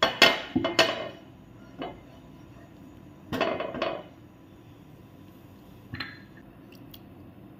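A silicone spatula knocking and scraping against a non-stick frying pan with oil in it: a cluster of sharp knocks at the start, another about three and a half seconds in, and a weaker one near six seconds.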